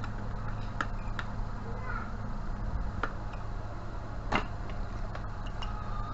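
A few sharp clicks and knocks from a CRT TV power-supply circuit board and tools being handled, the loudest about four seconds in, over a steady low hum.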